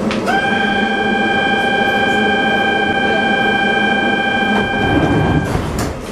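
Door-closing warning signal of a Budapest HÉV suburban train: one steady pitched beep held for about five seconds, over the train's low steady hum. Near the end the doors shut with a thud.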